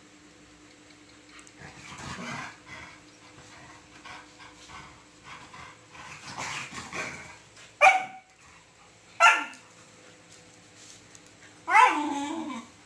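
Dogs play-fighting: scuffling and growling, then three sharp barks, the last a longer yelping bark that falls in pitch.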